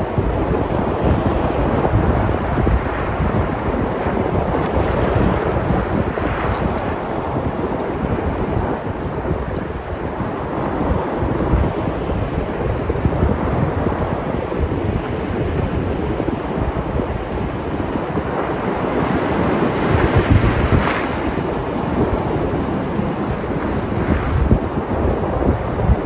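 Sea waves breaking and washing in a continuous surf, with low rumbling wind buffeting the microphone; the surges swell and fade every few seconds, with a stronger wave about twenty-one seconds in.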